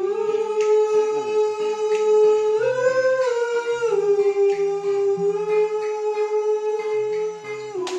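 Voices singing one long held note that steps up briefly about two and a half seconds in and settles back down about a second later, over acoustic guitar notes.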